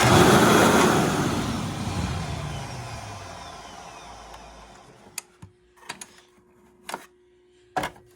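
Upright vacuum motor blips on and immediately winds down, its whine falling in pitch as it coasts to a stop over about four seconds. A few short knocks of the machine being handled follow.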